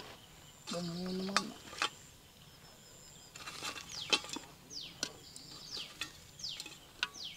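Soft knocks and clicks as roasted mutton pieces are set by hand into a metal pot of mandi rice. A bird repeats a short falling whistle call several times from about halfway through, and there is a brief low hum-like voice about a second in.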